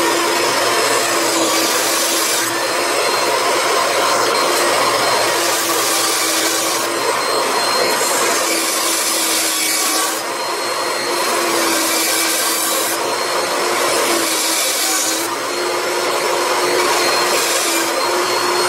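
Bandsaw running with a steady hum while its worn blade cuts into the plastic case of a 6-volt lantern battery. The cutting hiss swells and drops every few seconds as the battery is fed in and turned against the blade.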